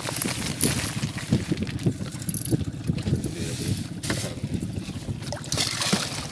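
Wind buffeting the microphone over water sloshing against a small boat's hull. Near the end comes a brief splash as a hooked fish thrashes at the surface beside the boat.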